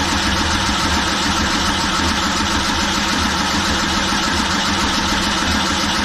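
Starter cranking a rebuilt 5.3 L LS V8 steadily, the engine turning over without catching. This is a no-start: the long crank drags the battery voltage down.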